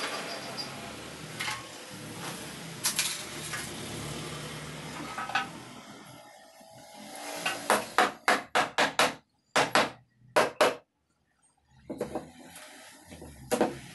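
Hammer striking during work on a wooden furniture frame: scattered knocks and handling noise, then a quick run of about six sharp blows about eight seconds in, a few more around ten seconds, and one last blow near the end.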